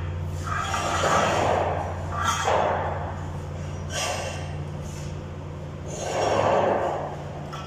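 Electric arc welding: the arc crackles and hisses in short welds of about a second each, four or five in a row, over a steady low hum.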